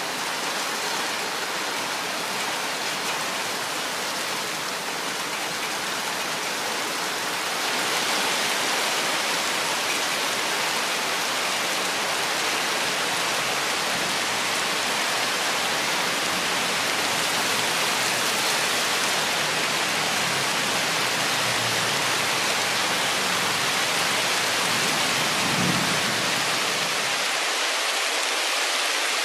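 Steady rain falling through forest, a dense hiss that grows louder about eight seconds in. A low rumble runs underneath through the middle, and near the end the deep part of the sound cuts off suddenly.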